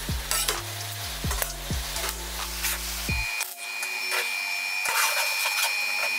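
Background electronic music with a deep, repeating kick-drum beat and bass notes. About three seconds in the beat and bass drop out, leaving a steady high-pitched tone.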